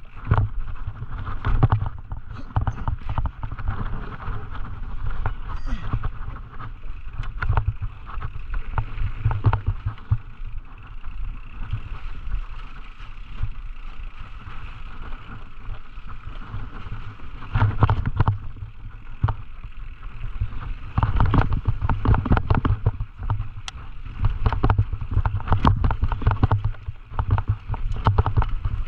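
Scott Gambler downhill mountain bike rattling and knocking over rough trail at speed, with a steady low rumble of wind on the microphone. The knocks come in heavier clusters about eighteen seconds in and again over the last several seconds.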